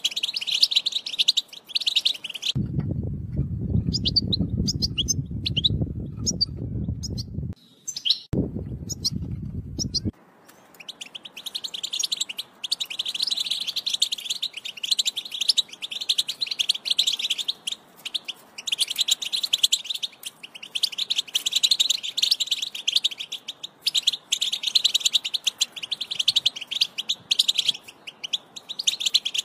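European goldfinch song: fast, tinkling twittering phrases, continuous from about ten seconds in. Before that, a loud low noise twice masks the song, once for about five seconds starting near three seconds in and once for about two seconds just before ten seconds.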